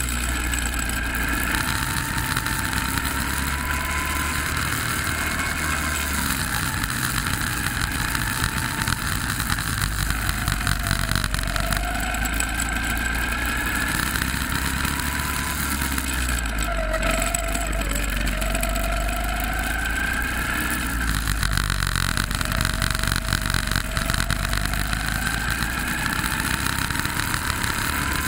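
Go-kart engine heard from on board while lapping, its pitch rising as the throttle opens and falling as it slows, several times over, with the lowest point a little past the middle. A steady rushing hiss runs underneath.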